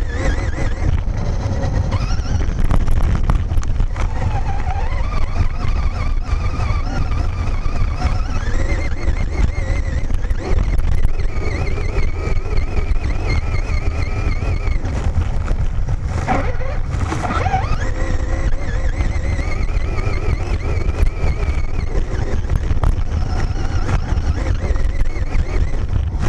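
Traxxas Slash VXL RC truck heard from its onboard camera as it drives over grass: the brushless motor whining, its pitch rising and falling with the throttle, over a constant low rumble. Two sharp knocks about two-thirds of the way through.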